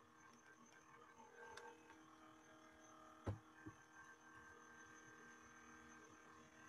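Near silence with a faint steady electrical hum, broken by one sharp mouse click about three seconds in and a softer tap just after it.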